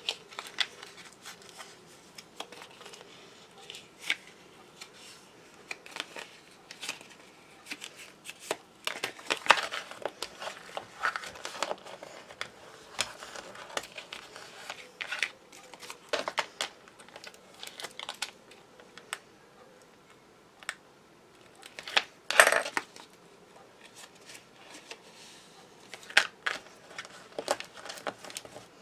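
Card and paper pages being folded, creased and handled: scattered crinkles, rustles and small taps, with a sharper clack about two-thirds of the way in.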